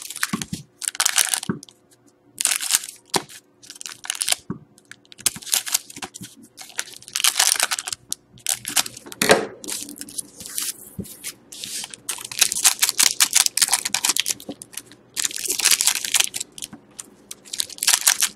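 Foil trading-card pack wrappers crinkling and tearing in irregular bursts as Panini Certified hockey packs are cut open with scissors and handled.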